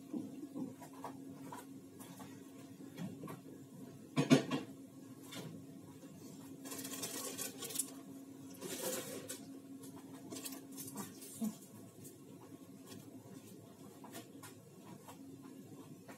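Kitchen handling sounds of dishes and utensils: scattered light clicks and clinks, one loud knock about four seconds in, and two longer scratchy noises around seven and nine seconds, over a faint steady low hum.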